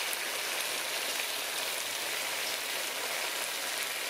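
Sauce-glazed chicken wings sizzling in a hot pan: a steady hiss with fine scattered crackles.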